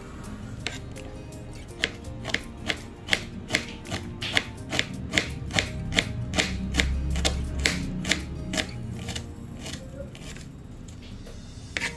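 Kitchen knife slicing on a cutting board: a steady run of sharp knocks, about two and a half a second, starting about two seconds in and thinning out near the end, over background music.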